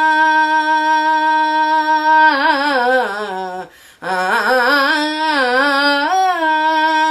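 A woman singing a devotional bhajan solo, with no accompaniment audible. She holds one long steady note, then sings an ornamented phrase that falls in pitch. After a short breath about four seconds in, she sings another wavering, ornamented phrase.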